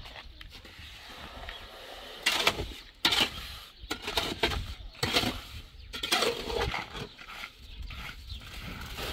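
Pick and shovel chopping and scraping into a heap of earth, with irregular strokes roughly once a second starting about two seconds in.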